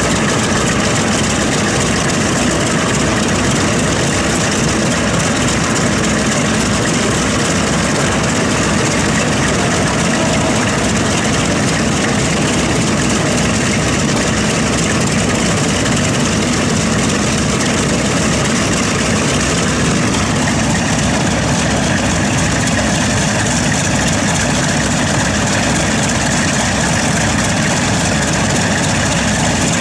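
Grumman C-1A Trader's two Wright R-1820 nine-cylinder radial engines running at idle, propellers turning. Loud and steady, with a fast, even beat low down.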